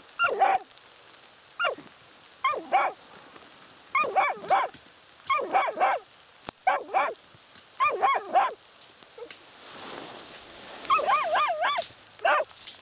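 Laika hunting dogs barking at a badger's burrow, baying at the badger holed up inside. The barks come in short groups of two or three, about one group a second, with a pause and then a quick run of wavering yelps near the end.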